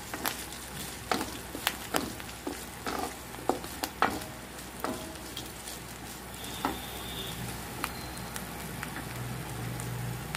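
Wooden spatula stirring fresh coriander, mint and curry leaves in a kadai over low heat: a quick run of scrapes and taps against the pan for the first few seconds, thinning out later, over a faint sizzle of oil.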